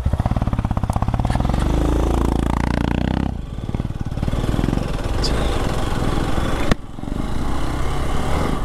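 Hero Xpulse 200 4V's single-cylinder engine pulling away in low gear on a dirt track, its pitch rising for about three seconds before dropping at a gear change. It then runs on steadily under wind and road noise, with a second brief break near the end.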